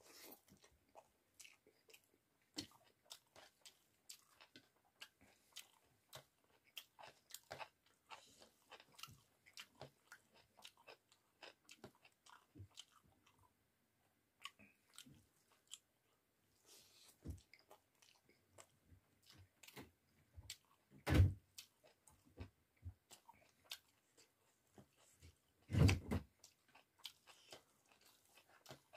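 Close-miked chewing and mouth sounds of a person eating rice with cauliflower and potato curry by hand: soft wet clicks and smacks throughout, along with fingers mixing rice on a steel plate. Two louder low thumps stand out, about two-thirds of the way through and again near the end.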